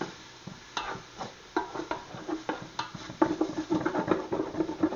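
Wooden spoon stirring and scraping diced bacon around the bottom of a large metal stockpot, in irregular scrapes and knocks that come thicker in the second half, over a light sizzle of the bacon starting to fry.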